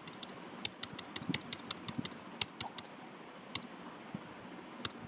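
Computer keyboard typing: a quick run of key clicks for about three seconds, then two single clicks.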